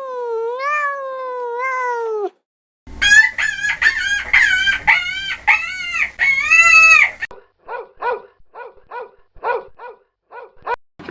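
Chickens calling in three short cuts. First, the end of a long rooster crow that falls away. Then a run of rapid, wavering high calls. Then short calls repeated two or three times a second.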